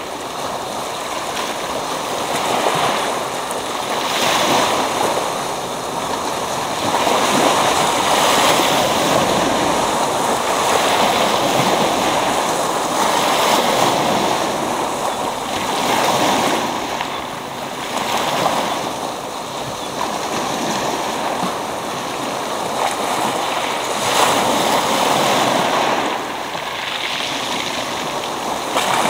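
Sea waves breaking and washing up over a pebble beach, the surf swelling and easing every few seconds.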